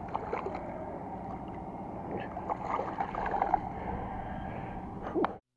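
Shallow pond water sloshing and lapping at the bank, with small scattered splashes and ticks over a steady outdoor hiss. It cuts off suddenly near the end.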